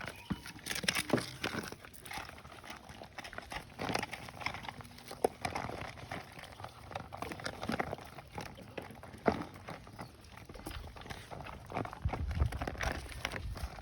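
Dogs eating together: irregular chewing and smacking noises with scattered sharp clicks.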